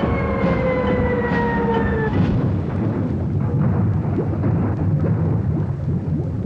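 Helicopter in trouble: a whine falls slowly in pitch and cuts off about two seconds in, then gives way to loud, continuous rumbling and knocking.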